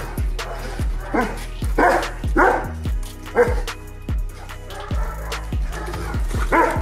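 Background music with a deep bass that slides down on each beat, and about five short animal calls over it, the loudest about three and a half seconds in.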